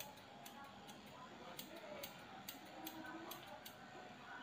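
Grooming scissors snipping the hair on a shih tzu's head: a quick, uneven run of light metallic clicks, several a second.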